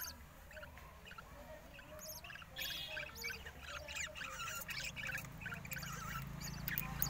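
Budgerigars in a nest box chirping: many short, high squeaky calls in quick succession, which fit chicks begging while an adult feeds them. A faint low hum comes in under them near the end.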